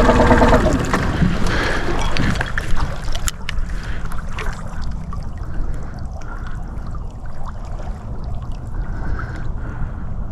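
A small boat's motor running steadily cuts off about half a second in. After that, water laps and gurgles around the hull, with scattered light knocks and wind rumbling on the microphone.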